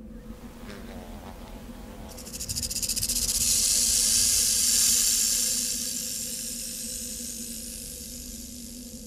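High, dry rattling hiss that starts about two seconds in with a fast pulsing texture, swells to its loudest around the middle and then slowly fades.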